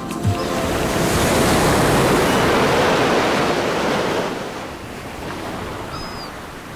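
Ocean surf breaking on rocks. The wash swells up about a second in and falls away after about four seconds into a lower, steady sound of the sea.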